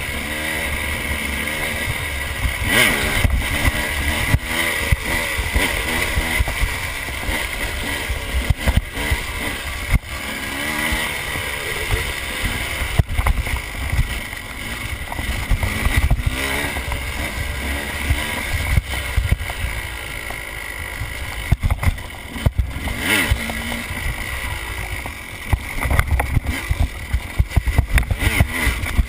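KTM enduro dirt bike engine heard close up, revving up and down with gear changes and throttle as the bike is ridden. Wind rumble on the microphone and frequent sharp knocks from bumps in the trail run through it.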